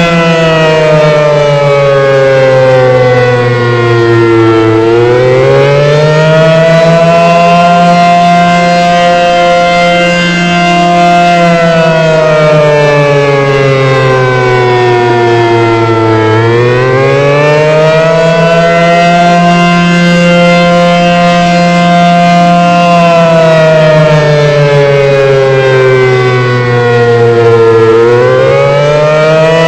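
ACA Banshee 115 outdoor warning siren sounding a multi-tone wail: the chord slides slowly down in pitch over about five seconds, climbs back quickly, holds high for several seconds, and repeats about every eleven to twelve seconds. This rising and falling wail is the attack signal.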